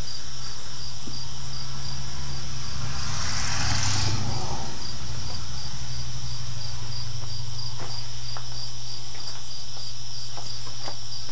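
Crickets chirping steadily, about three chirps a second, over a low steady hum. A brief rushing noise swells and fades about three to four seconds in.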